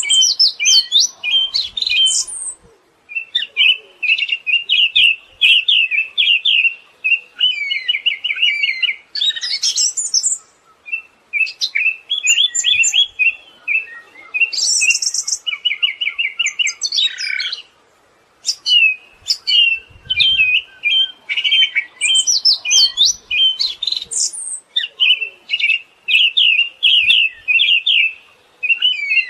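Siberian thrush singing: long runs of rapid chattering notes, with a few higher notes mixed in and short pauses between phrases.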